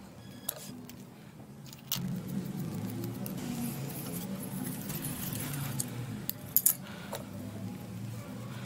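Scattered clicks and clinks of plumbing fittings and pliers being handled, a brass shut-off valve and plastic pipe unions knocking together, with two sharp clinks a little past halfway. A steady low hum runs underneath.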